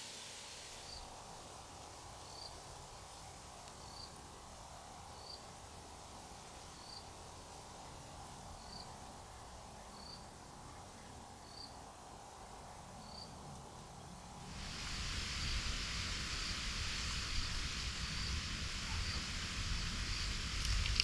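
A cricket chirping faintly, one short high chirp about every second and a half. About two-thirds of the way in, a louder steady hiss with a low rumble abruptly takes over and the chirps stop.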